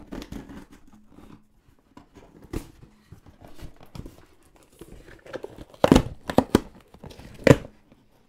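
Tape being picked at and ripped off a cardboard shipping box, with scratching and scraping on the cardboard. Two loud rips come about six and seven and a half seconds in as the box is torn open.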